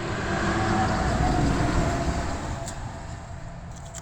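A vehicle's rumble passing by, swelling and then fading away.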